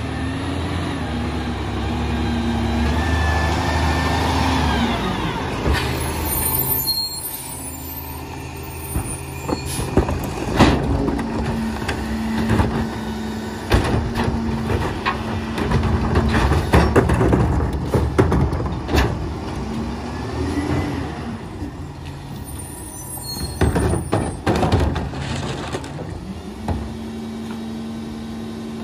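Peterbilt 348 EZ-Pack Goliath rear-load garbage truck working: the engine runs steadily, rising in speed for a few seconds near the start. Two short air-brake hisses come through, and a long run of clanks and bangs from trash being loaded.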